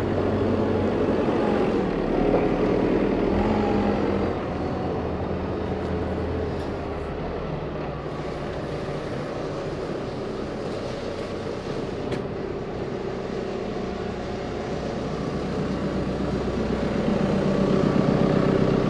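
Backhoe loader's diesel engine idling steadily, a little louder about two seconds in and again near the end.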